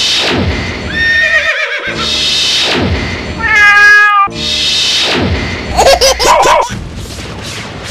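Comic title-sequence sound effects: three falling whooshes, each followed by a short animal-like cry with wavering pitch, the last a dog howl about six seconds in. Music with a steady beat comes in near the end.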